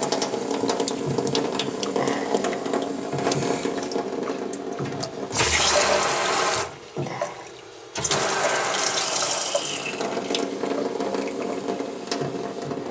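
Water running from an open hot-water tap as a freshly refilled water heater tank is bled, with the air already purged. The flow surges louder about five seconds in, drops to a lull a second and a half later, then runs steadily again.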